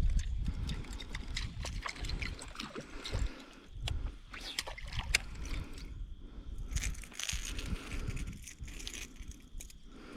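Water sloshing and gurgling, with irregular low rumbles and many small clicks and knocks.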